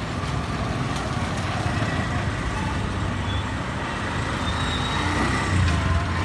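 Street traffic: a steady rumble of engines passing, with faint background voices and clicks mixed in.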